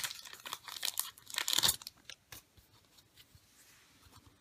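Baseball card pack wrapper being torn open and crinkled, in several loud rustling bursts over the first two seconds, followed by a few faint clicks as the cards are handled.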